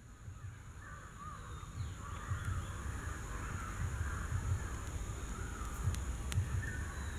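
Birds calling continuously in the background, a wavering chatter, over a low uneven rumble that swells in the first couple of seconds.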